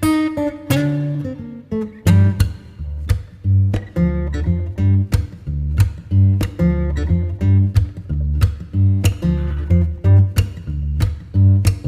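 Background music: plucked and strummed acoustic guitar over a bass line, with notes struck at an even pace.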